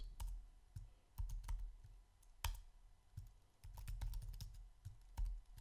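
Computer keyboard being typed on: irregular keystrokes in short runs, with one louder key strike about two and a half seconds in.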